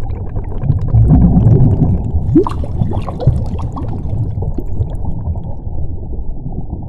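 Underwater bubble sound effect: a deep, muffled rumble with bubbling and a few short rising gurgles near the middle. It is loudest about a second in and eases off toward the end.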